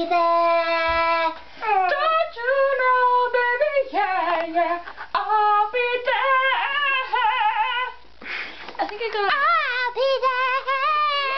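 A young girl singing without accompaniment in a small bathroom. She opens on one long held note, then sings melodic phrases with a wavering pitch, with a short break about eight seconds in.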